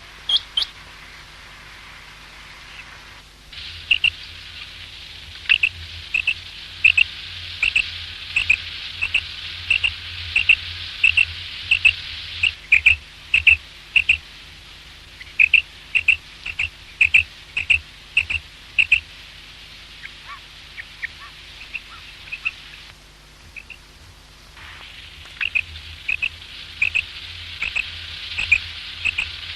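Common quail calling: short, sharp, high-pitched notes repeated about once or twice a second in long runs, over a steady hiss that starts a few seconds in and drops out briefly about two-thirds of the way through.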